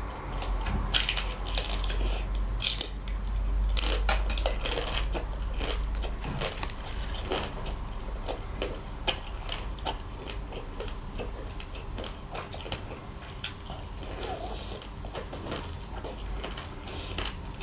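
A person biting and chewing grilled pork close to the microphone: a run of crunchy bites and small clicks, loudest in the first few seconds, with a low rumble underneath at first.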